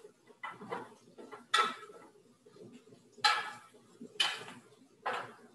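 A utensil knocking and scraping in a sauté pan on the stove while Italian sausage is broken up as it browns: about five sharp clinks, roughly a second apart, each with a short ring.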